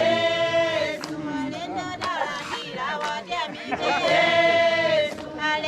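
A group of people singing together, with long held notes about a second in and again about four seconds in.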